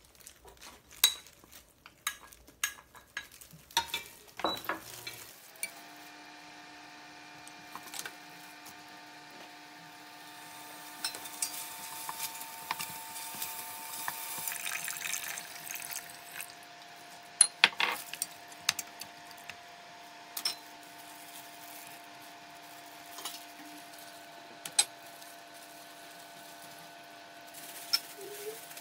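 Seaweed stir-frying in sesame oil in a stainless steel pot: a utensil clinks and scrapes against the pot, with a light sizzle in the middle stretch. In the first few seconds bowls and ingredients knock as they go in, and a steady electric hum starts about six seconds in.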